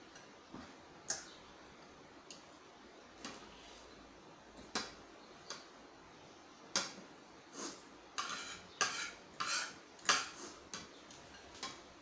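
Metal spoon and fork clinking and scraping against a ceramic plate and soup bowl while eating. There are scattered single clinks at first, then a quicker run of clinks and short scrapes in the second half.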